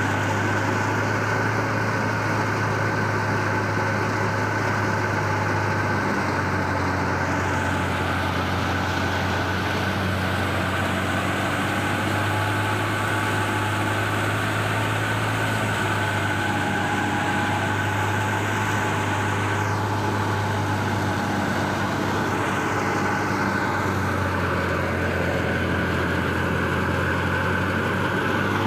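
Wheat thresher driven by a New Holland Dabung tractor, running steadily at working speed while threshing: a constant engine hum under a steady high whine from the thresher's drum and blower.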